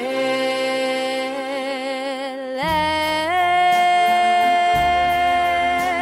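Recorded song: a female vocalist holds a long note with vibrato over a backing track, then slides up about two and a half seconds in to a higher long held note, as a bass line and a ticking beat come in.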